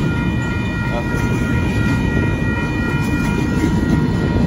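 Double-stack container cars of a BNSF intermodal freight train rolling past close by: a loud, steady rumble and clatter of steel wheels on the rails, with a few faint steady high tones above it.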